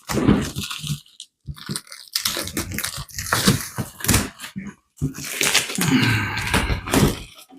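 Plastic packaging crinkling and tearing as it is pulled open by hand, in irregular crackly bursts with short pauses.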